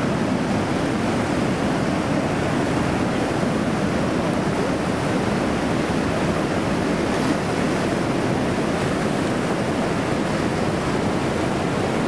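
A river in flood rushing through whitewater below a dam: a steady, even rush of fast water.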